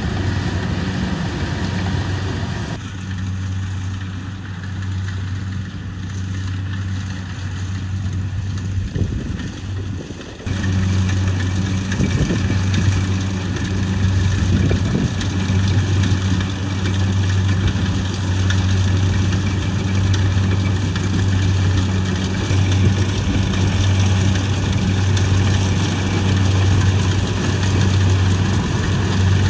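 Kubota rice combine harvester's diesel engine running steadily at working speed, a strong low hum with machinery noise over it. From about three seconds in the sound goes duller and quieter, then jumps back to full loudness around ten seconds in.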